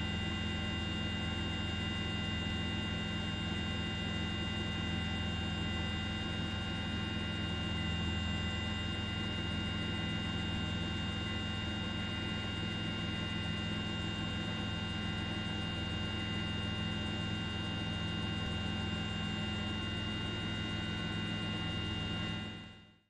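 Steady drone of an aircraft's engine, heard from on board, with several high steady whining tones over a heavy low rumble; it fades out quickly near the end.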